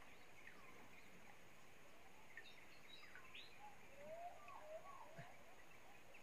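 Faint wild bird calls over a steady background hiss: a few short chirps and whistled glides, clustered in the middle.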